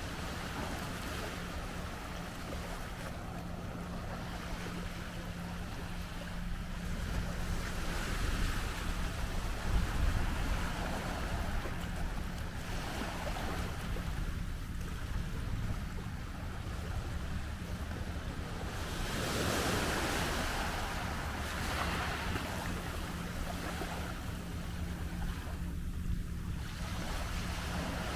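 Small sea waves lapping and washing up a sandy, pebbly shore in surges, one wash louder about two-thirds through, with wind buffeting the microphone.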